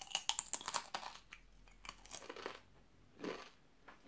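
A crunchy tortilla chip being chewed close to the microphone: a quick run of crackling crunches in the first second, thinning out to a few scattered crunches as it is chewed down.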